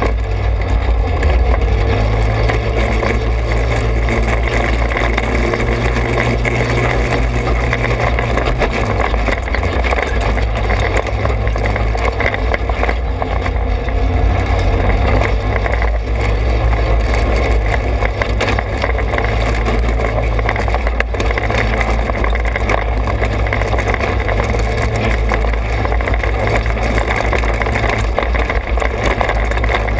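Trailmaster 200 XRX dirt bike engine running at a steady trail-riding pace, with a heavy low rumble of wind on the microphone. The engine note holds steady for the first several seconds, then shifts up and down slightly as the rider varies the throttle.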